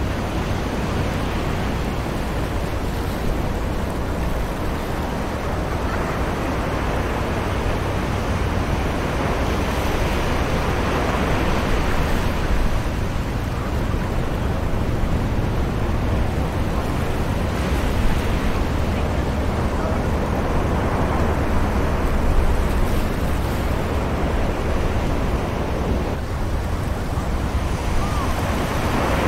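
Beach ambience: distant ocean surf, a steady wash of waves rising and falling slowly, over a low rumble.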